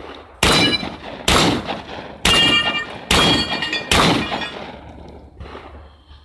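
Five shotgun shots fired in quick succession, a little under a second apart, each followed by a short ringing tail.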